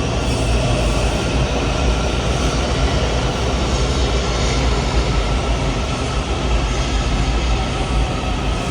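Washington Metro train running in an underground station: a steady, loud rumble.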